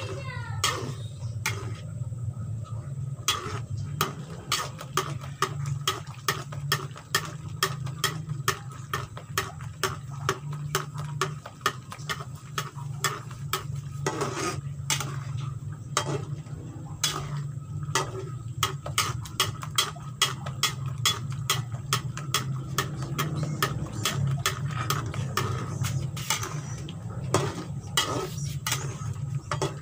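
A metal spatula stirring chicken gulai in a frying pan, clicking and scraping against the pan many times at an uneven pace, over a steady low hum.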